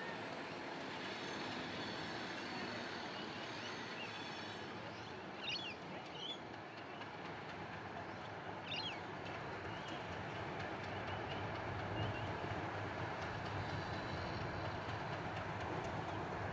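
Two diesel locomotives, Queensland Rail heritage 1461 and a blue and yellow unit, rolling slowly along the track with a steady engine and rail rumble whose low hum grows as they come closer in the second half. A few brief high squeaks come about five to six seconds in and again near nine seconds.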